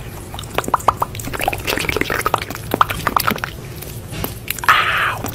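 Opossum eating chopped egg, with quick irregular wet smacking and clicking chewing sounds. A short breathy rush of noise comes near the end.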